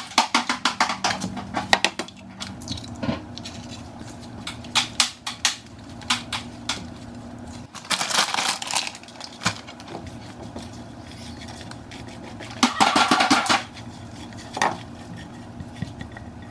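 Eggs cracked against the rim of a frying pan, with a quick run of sharp taps and clicks at the start. After that a spatula knocks and scrapes in the pan, scrambling the eggs, in short spells about 8 and 13 seconds in.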